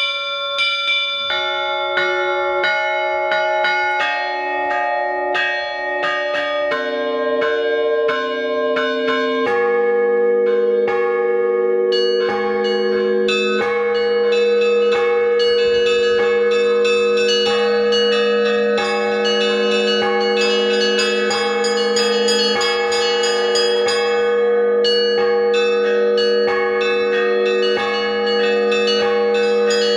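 Russian Orthodox church bells rung as a peal (zvon) by a single bell ringer, with small and middle bells struck in repeating rhythmic patterns. About ten seconds in, a deeper bell joins, and the ringing grows fuller and denser.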